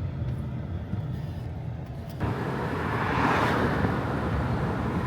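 A motor vehicle passing on the roadway: its noise swells from about two seconds in, peaks, then fades near the end, over a steady low rumble.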